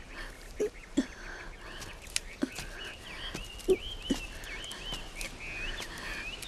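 Forest sound effects: a bird chirping in a run of short, wavering high calls, with a few soft footsteps thudding now and then, the loudest about halfway through.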